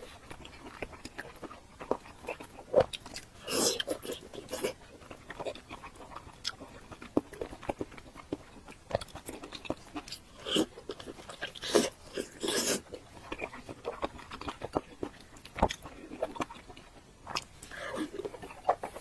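Close-up eating sounds: chewing fatty boiled pork belly, with irregular wet mouth clicks and smacks.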